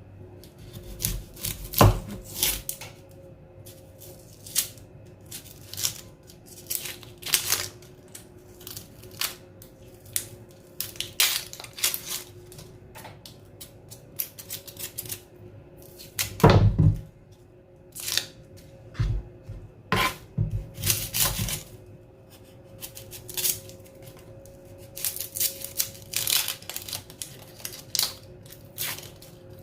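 Dry, papery skin of white onions being peeled off: irregular crackling and tearing, with a few heavier thumps as the onion is handled, the loudest about sixteen seconds in.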